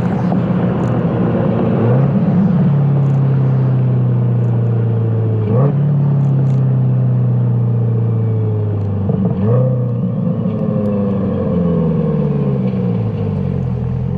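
C8 Corvette V8 heard through a stainless-steel LMR cat-back exhaust with X-pipe and mufflers, driving at low revs. The note holds or slowly sinks in pitch, with three quick rises in revs, about two, five and a half and nine seconds in.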